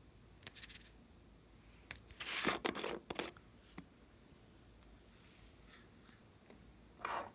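Small plastic cup being handled and opened, with short crinkling, tearing-like rustles and clicks, the loudest about two to three seconds in. Then a soft hiss as small foam beads are poured out of it into a tray of slime, and another rustle near the end.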